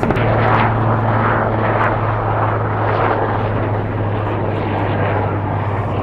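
An aircraft engine running with a steady low hum, under a loud rushing noise that swells and fades.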